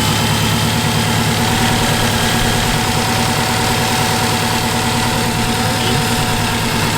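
Subaru WRX turbocharged flat-four idling steadily, just started for the first time with a newly installed Injen intake.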